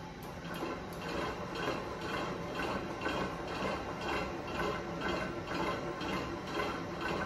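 Innofood V88 stand mixer running, its motor and gears whirring with an even pulse about three times a second as the beater turns, creaming butter and icing sugar.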